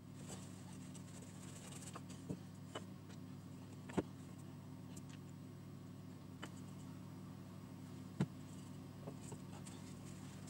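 A few light knocks and clicks of wooden pieces being handled and set against each other on a wooden workbench, the loudest about four and eight seconds in, over a steady low hum.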